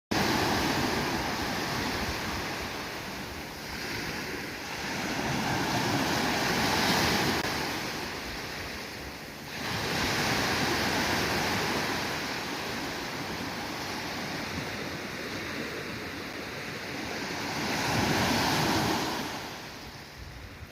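Sea waves breaking and washing on a beach, a steady rush of surf that swells and subsides every few seconds, with a few louder surges.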